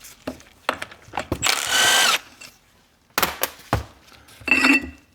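Power drill/driver spinning out the bolts of a manual transmission's front bearing retainer in two short bursts, its motor whine rising and falling, with sharp metallic clicks in between.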